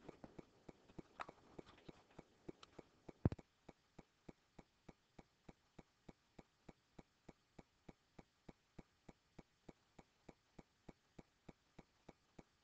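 Near silence with faint, evenly spaced ticking, about three ticks a second. A single louder click comes about three seconds in, after which the background hiss drops away and only the ticking remains.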